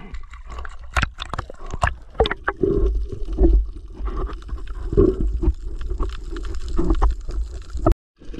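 Water splashing and sloshing around a camera at the sea surface as a spearfisher swims with a spear. The sharp splashes give way to muffled underwater gurgling and rumble as the camera goes under. The sound cuts out completely for a moment near the end.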